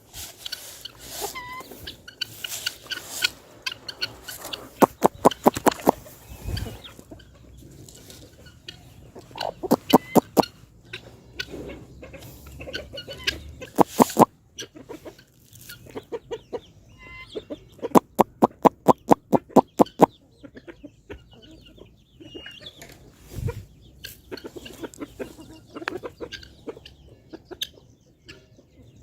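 Chickens clucking, with several runs of quick, sharp taps about five a second.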